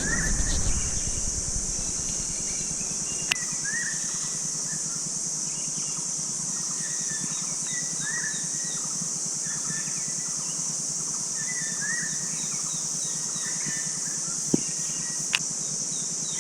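Birds calling in the wild: short rising call notes repeated every second or two, with fainter higher notes in series, over a steady high-pitched drone, insect-like, such as cicadas. A few sharp clicks.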